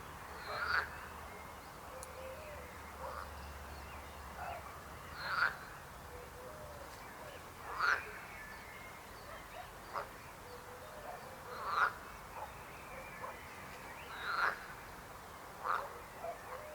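Frogs croaking: short, loud croaks every one to three seconds, about seven in all, over a faint steady background chorus.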